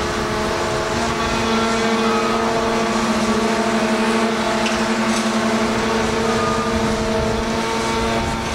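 Large mobile crane's engine running steadily as it works its hook and load, a continuous drone with several held tones.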